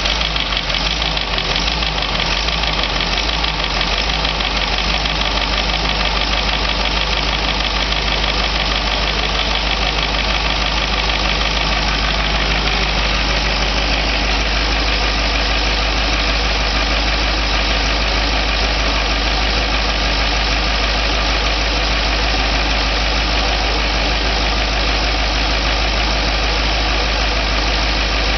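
Caterpillar 3208 V8 diesel engine running steadily out of the truck on a test stand, its exhaust leaving through a short open pipe with no muffler.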